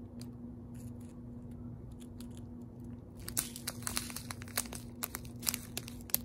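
Clear plastic bags of round diamond-painting drills being handled, crinkling and rustling. The crinkling is sparse and faint at first and gets busier and louder from about three seconds in.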